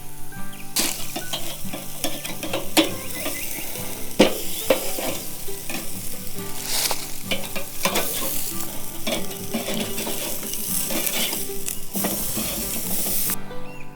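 Food sizzling and frying in a pan while being stirred, with sharp clicks of the utensil against the pan. The sizzle starts about a second in and stops shortly before the end.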